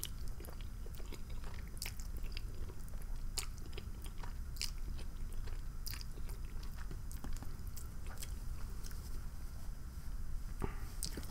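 Close-miked chewing of fettuccine Alfredo: soft wet mouth clicks and smacks at irregular intervals, over a low steady hum.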